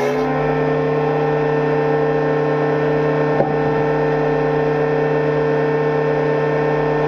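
Woodworking machine running steadily with a constant motor hum, with one short click about three and a half seconds in.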